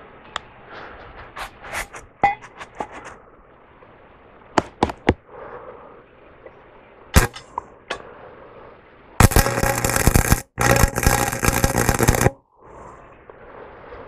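Stick-welding arc crackling and sizzling for about three seconds, with a steady low hum underneath and one brief break, as a bead is run on the steel frame. Before it come a few sharp clicks and taps of metal.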